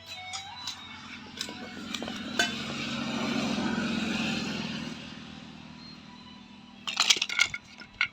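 Metal parts of a submersible pump clinking and knocking as they are handled and fitted. There are scattered clinks early, a swelling rushing noise in the middle, and a quick cluster of loud clinks about seven seconds in.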